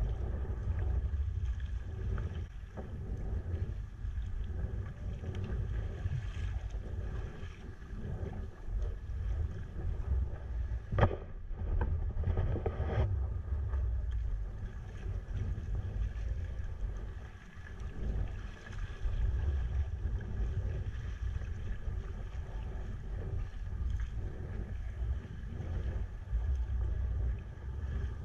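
A sea kayak under way on choppy water, with wind rumbling on the action camera's microphone. One sharp knock comes about eleven seconds in.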